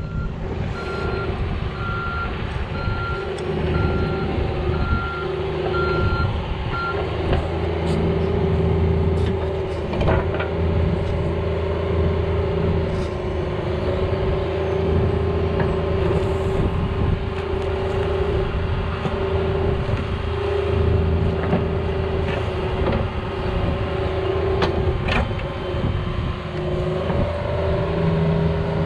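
Cat 304 mini excavator's diesel engine running and working under hydraulic load as it digs. Its travel alarm beeps steadily about once a second for the first seven seconds or so while it tracks into position. A few sharp knocks come from the bucket striking soil and stones.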